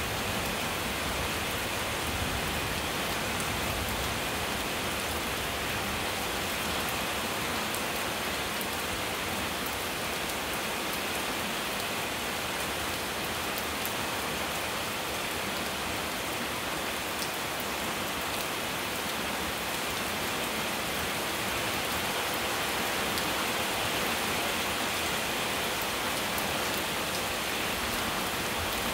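Steady rain falling on a wet paved lane and tree leaves: an even, unbroken hiss of rain.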